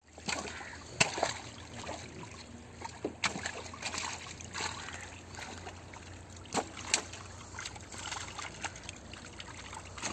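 Water splashing and trickling as tilapia crowded in a net thrash at the surface and are handled by hand, with a few sharper splashes, two of them close together later on.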